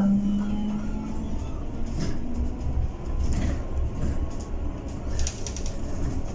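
Interior of a Bolloré Bluebus 12-metre battery-electric city bus on the move: low road rumble and cabin rattles, with a faint electric-motor whine that rises in pitch as the bus picks up speed. A steady hum sounds for about the first second.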